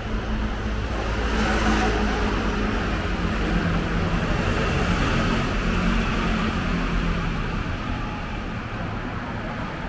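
City street traffic: a motor vehicle passes close by, its engine note swelling and then fading over several seconds, over a steady low rumble of traffic.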